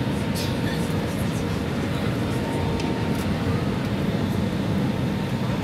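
Steady in-flight airliner cabin noise, the drone of engines and rushing air heard from a window seat over the wing, with a faint steady whine above it.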